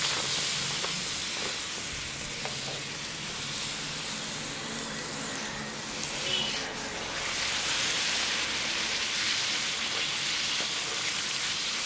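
A poori deep-frying in hot oil: a steady sizzling, a little louder from about seven seconds in.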